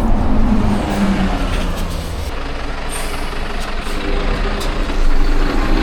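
A bus passing close by, its engine running loud and heavy.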